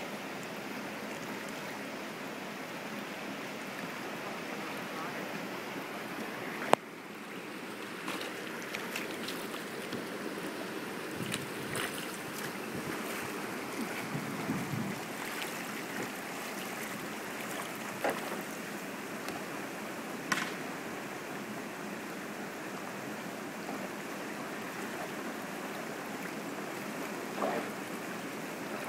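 River rapids rushing steadily over rocks. A single sharp, loud knock cuts through about a quarter of the way in, with a few fainter knocks later.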